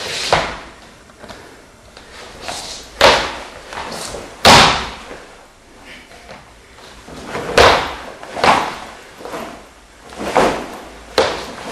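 Wooden tonfa strikes against a padded striking post, about seven sharp hits at uneven intervals, the loudest about three and four and a half seconds in.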